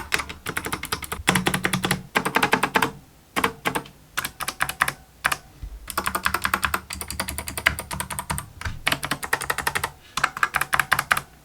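Typing on a mechanical keyboard with clicky Kailh optical switches: fast runs of sharp key clicks in bursts, with short pauses about 3 and 5½ seconds in. The case has a noticeable hollow ring, which the reviewer finds bothersome.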